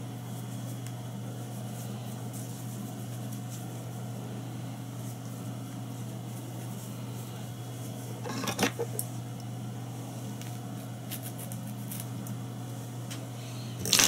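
Steady low electrical hum, with brief rustling handling noise about eight seconds in and again near the end.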